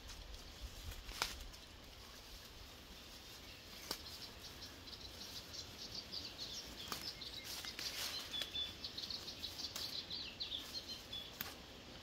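Stinging nettle stems being cut with a hand sickle and the leaves rustling as gloved hands gather them, with a few sharp snaps of stems. The rustling grows dense and fast in the second half.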